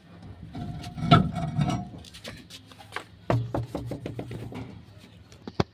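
A run of clicks, knocks and scraping from hand tools being worked on a van's wheel, with the strikes coming closer together from about halfway through.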